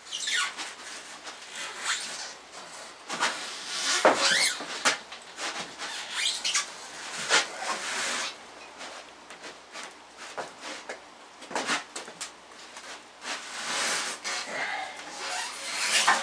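Irregular squeaks, creaks and scraping from an engine hoist, its chain and the engine hanging from it as they are pushed and turned by hand, with metal and rubber rubbing. There are a few short high squeals, the clearest about four seconds in.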